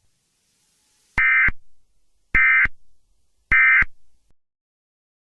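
Three short, identical bursts of Emergency Alert System SAME data tones, a warbling digital squawk about a second apart. This is the end-of-message burst that closes the broadcast warning.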